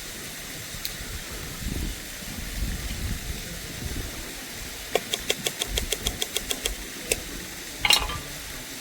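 Steady rush of a waterfall, with a rapid run of clicks, about six a second for nearly two seconds, starting about five seconds in. Near the end there is a single louder clatter with a brief ring.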